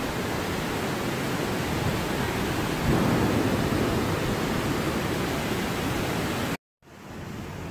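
Flash-flood water rushing down a creek: a dense, steady noise that stops abruptly about six and a half seconds in, then carries on more quietly.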